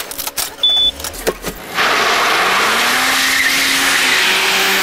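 A car running loudly for about three seconds, with a faint slowly rising engine tone, after a few clicks and a short high beep.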